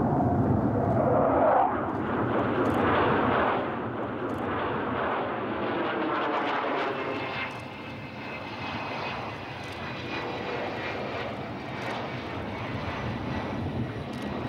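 Jet engines of a Sukhoi T-50 (PAK FA) fighter. The roar is loud at first, drops in steps a couple of times in the first few seconds, then settles into a quieter steady rumble with a high engine whine as the jet lands and rolls along the runway.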